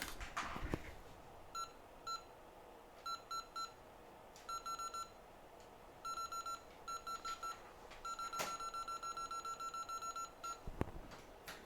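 Hot air rework station's control panel beeping as its buttons are pressed to set the temperature: short, identical high beeps, singly and in quick groups of two to four, then a fast run of about twenty beeps while a button is held down, with a few light clicks.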